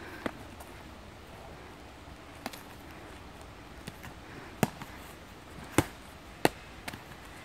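Foam-padded practice swords striking in a sparring bout: about half a dozen sharp smacks at irregular intervals, the three loudest in the second half.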